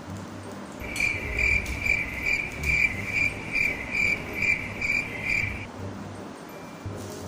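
Cricket chirping: a quick, even train of high chirps, about two or three a second, that starts about a second in and stops about four and a half seconds later.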